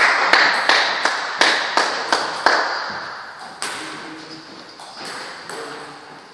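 Table tennis ball bouncing: a string of sharp ticks about three a second, ringing in a large hall, then a few more spaced-out ticks as it fades.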